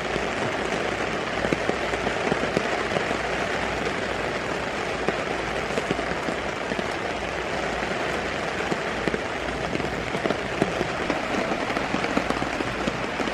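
Steady rain falling, a dense even hiss with scattered individual drop impacts.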